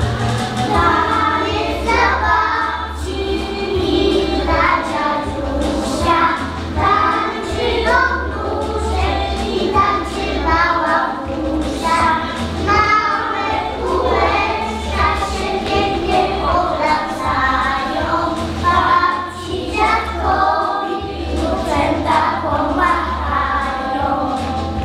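A group of young children singing a song together over a recorded backing track with bass.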